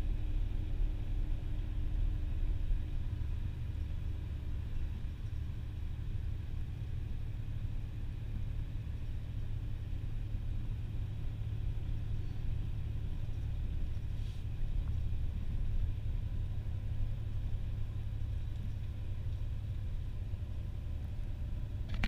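Steady low rumble of a moving road vehicle heard from inside the cabin: engine and road noise while driving.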